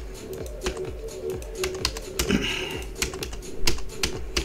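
Computer keyboard keys pressed one at a time at an uneven pace while lines of code are deleted.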